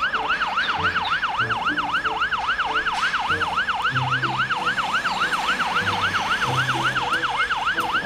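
Fire engine siren in fast yelp mode: a wail sweeping up and down about four times a second, steady and unbroken.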